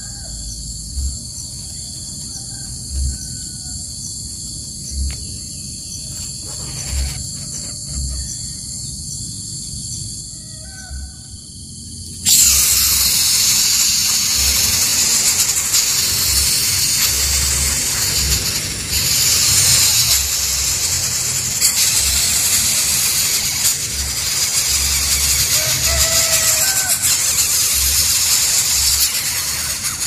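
Coucal nestlings in the nest giving a loud, harsh, hissing begging call that starts suddenly about twelve seconds in and carries on. Before that there is only a steady high drone with a few faint short chirps.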